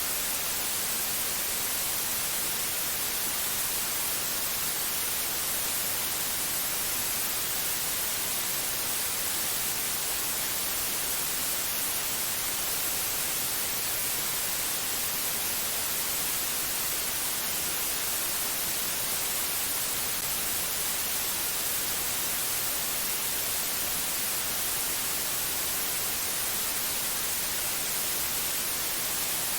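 Steady electronic white noise: an even, unchanging hiss, brightest in the highs, like TV static.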